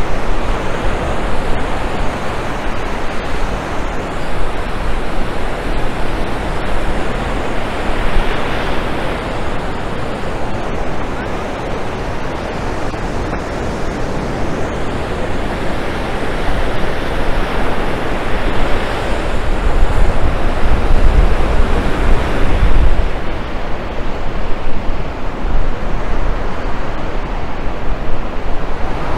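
Ocean surf washing onto a beach, a steady rushing noise that swells louder several times as waves break. Wind rumble on the microphone in the later part.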